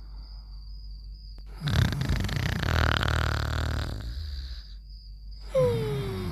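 Cartoon snoring sound effect: a loud, rasping snore lasting about three seconds, then a whistling breath that falls in pitch near the end.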